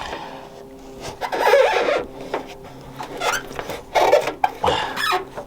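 Plastic trim pieces of a Cadillac Escalade's rear hatch being worked apart by hand, with irregular creaking, scraping and clicking as the hooked-together parts are pried and flexed. The loudest creaks come about a second and a half in and again about four seconds in.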